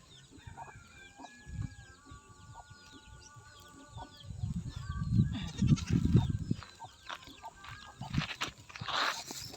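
Farmyard animals: goats bleating and chickens clucking, with many short chirps of small birds over them. Low rumbling comes in around the middle, and there is a loud rushing burst near the end.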